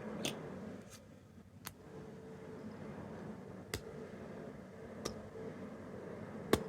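Small plastic capsule toys being handled: about six sharp clicks and taps spread over several seconds, the loudest near the end, over a faint steady background hum.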